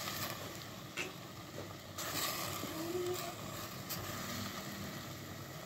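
Torn roti pieces in a steel pot of sugar-and-ghee syrup sizzling softly over a wood fire as a hand mixes them, with a few sharp clicks about one, two and four seconds in.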